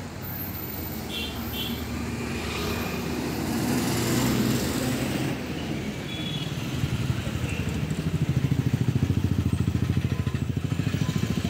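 Street traffic by a bus stand: bus and motorcycle engines pass, swelling to a peak about four seconds in. In the second half a nearby engine idles with a fast, even throb.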